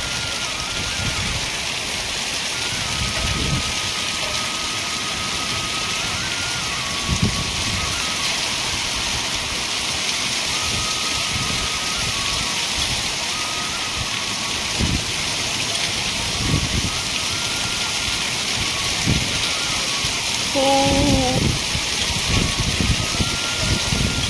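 Heavy rain and hail pelting a concrete rooftop, making a dense, steady hiss, while storm wind gusts buffet the microphone. A brief voice is heard about 21 seconds in.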